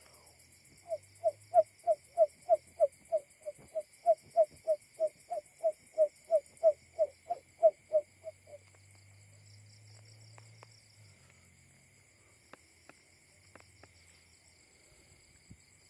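Barred buttonquail call, a recording used as a lure call and labelled as a male's: a run of about twenty short low hoots, about three a second, lasting some eight seconds, then stopping. Steady insect trilling runs underneath.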